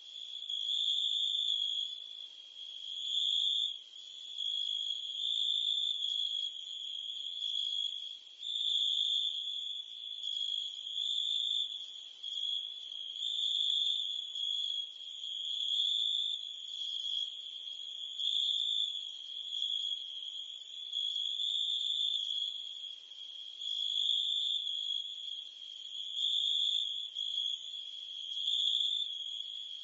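Insect chorus of crickets and cicadas: a steady, high-pitched, unbroken trill that swells and eases about every two to three seconds.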